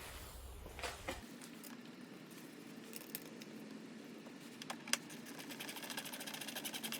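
Light clicks and knocks of plastic parts being handled as the rear light cluster is fitted back, then a fast, even ticking from about five and a half seconds in.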